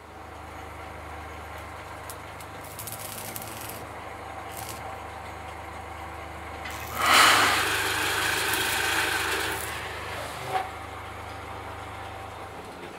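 Stick (arc) welding on steel: the electrode's arc crackles in a few short bursts, then in a loud, hissing stretch of about three seconds past the middle, over a steady low hum. A brief clank near the end.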